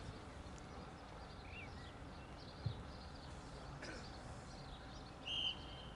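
Referee's whistle blown once, a short steady high blast about five seconds in, over steady wind noise and faint distant shouts. A single thud about halfway through.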